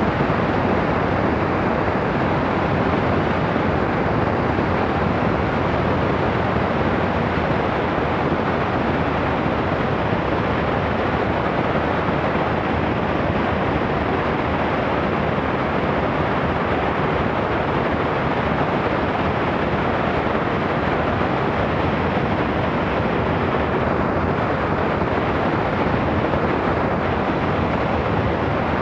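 Zenith CH 750 Cruzer light aircraft in cruise flight: a steady rush of wind over the wing-mounted camera, with the engine and propeller droning under it, unchanging throughout.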